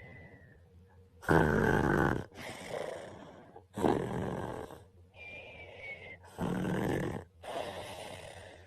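A sleeping man snoring: three loud snores about two and a half seconds apart, each followed by a softer breath.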